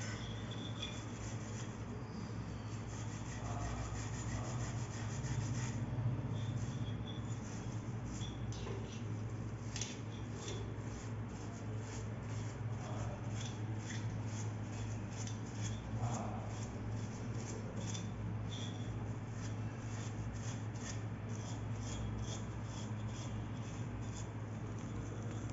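A scrubber rubbing and scraping over a chrome-plated wall tap (angle valve), cleaning it in repeated back-and-forth strokes that come quicker and crisper from about a quarter of the way in. A steady low hum runs underneath.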